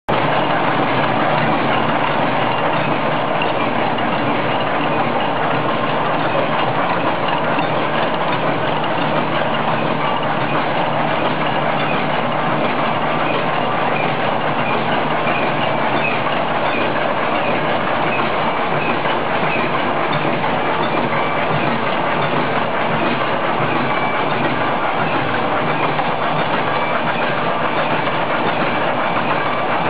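Coil-fed automatic welded wire mesh machine running: a loud, steady, dense mechanical clatter as it spot-welds the cross wires and feeds the mesh onto the roll.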